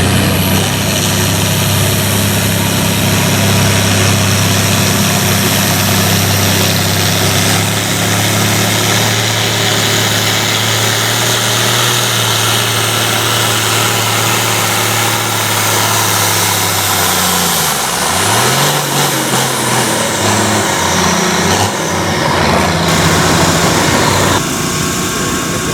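Farm pulling tractor's engine running loud and steady at a held speed. About eighteen seconds in its pitch drops and swoops back up, then it runs on more unevenly.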